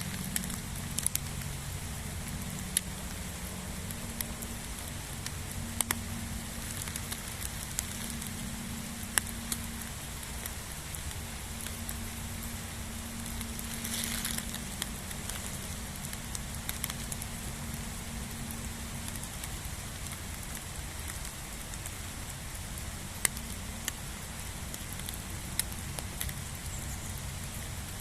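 Steady rain with scattered sharp taps of single drops, over a low steady hum.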